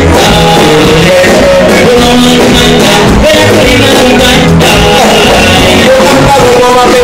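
A man singing into a microphone over live band music, with an electric guitar among the instruments. It is loud and steady throughout.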